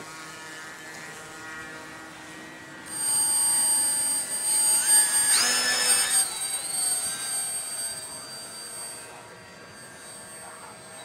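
RC model airplane's motor and propeller, throttled up about three seconds in to a loud, high-pitched whine for a hand launch. The pitch rises briefly about two seconds later, then drops, and the sound fades as the plane climbs away.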